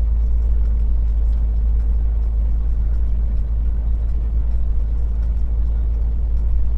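Truck's diesel engine and road noise heard inside the cab: a steady low drone as the truck pulls up a grade at reduced speed.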